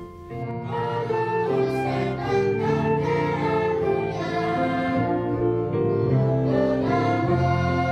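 Music played on bowed string instruments, violin and cello, in layered sustained notes, starting just after the start.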